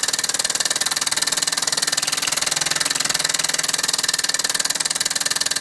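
Mamod SE2 model steam engine running on steam at speed, a fast, even rhythmic beat of its exhaust and moving parts.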